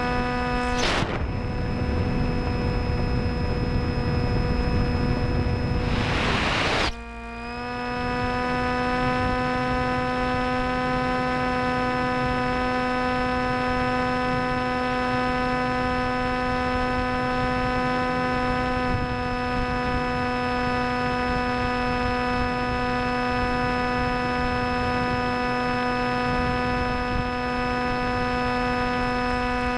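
Electric pusher motor and 10x6 folding propeller of an FX-61 Phantom flying wing running steadily in flight, a loud whine with many overtones. Wind rushes across the microphone about a second in and again around six to seven seconds in, where the whine dips briefly before settling back.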